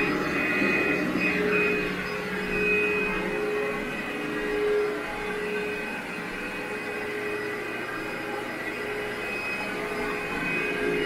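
Vacuum cleaner running steadily while pre-vacuuming dry soil out of a dirty carpet, with a steady whine whose loudness swells a little as it is pushed and pulled.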